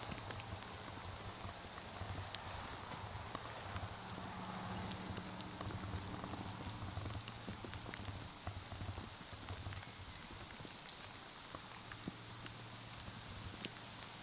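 Light rain falling, a steady patter with scattered individual drops ticking close by. A low rumble comes and goes underneath.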